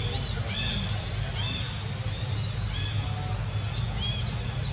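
Newborn macaque crying in short, high, arching squeals, three in a row, with quick high bird chirps near the end.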